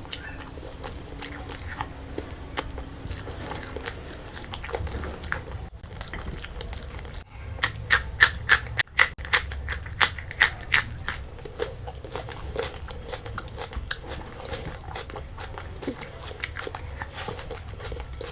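A person chewing and biting food, with wet mouth clicks throughout. Around the middle comes a run of sharp, crisp crunches, about three a second for roughly three seconds.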